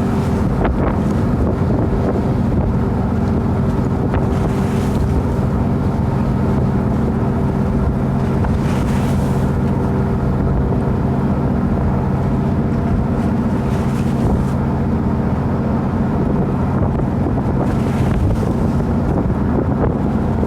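Boat engine running steadily at an even pitch, with wind buffeting the microphone.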